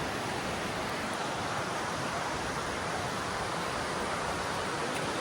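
Mountain creek rushing over rocks: a steady, unbroken rush of water.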